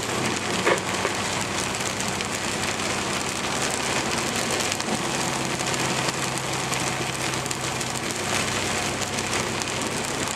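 Heavy rain hitting a semi truck's windshield and cab at highway speed, a dense steady hiss over the low, even drone of the truck's diesel engine. A single brief knock sounds just under a second in.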